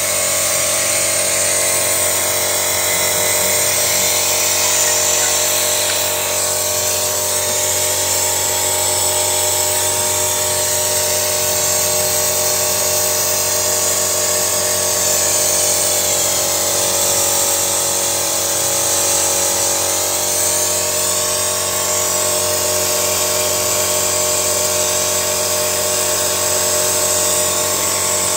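Small electric motor running steadily, with a constant whine over a strong hiss.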